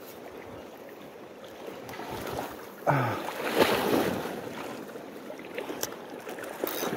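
A float rig cast with a spinning rod: a sudden swish about three seconds in as the line runs off the reel, then a few sharp clicks near the end as the reel's bail is closed. Sea wash and wind on the microphone run underneath.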